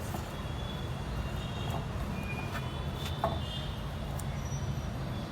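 Soft sounds of dough being kneaded by hand in a bowl, over a steady low background rumble with a few faint high chirps.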